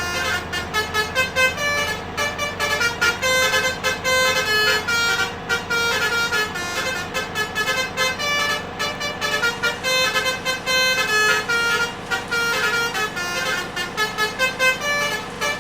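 Bus 'telolet' basuri trumpet horns, a set of musical air horns, playing quick tunes of short notes that jump between several pitches without a break.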